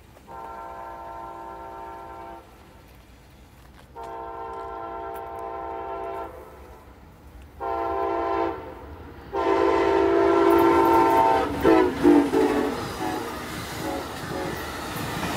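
Amtrak passenger train's locomotive horn sounding the grade-crossing signal of long, long, short, long, each blast louder as the train approaches. Once the horn stops, the train passes close by with a loud rush of wheel and rail noise.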